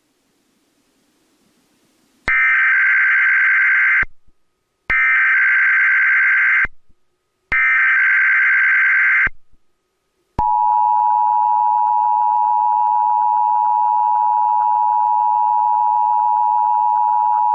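Emergency Alert System Required Monthly Test relayed by a Comcast cable EAS unit: starting about two seconds in, three identical bursts of SAME header data tones, each nearly two seconds long with short gaps between. About a second after the third burst, the steady two-tone EAS attention signal (853 and 960 Hz) begins and holds.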